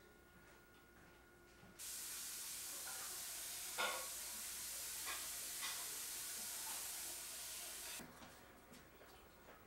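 A steady, even hiss that starts abruptly about two seconds in and cuts off abruptly about eight seconds in, with a few light knocks during it.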